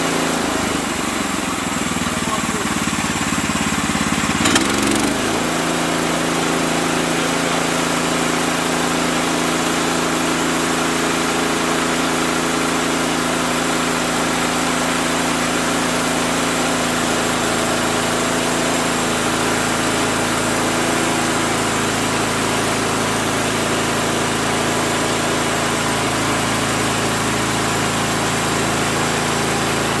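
Woodland Mills HM130 MAX portable band sawmill running, its gas engine holding a steady speed while the band blade is pushed through a log. A single sharp knock and a brief shift in the engine's pitch about four and a half seconds in.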